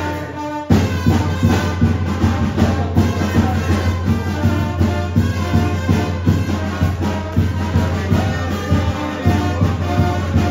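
Brass-band music with a steady beat and a heavy bass line.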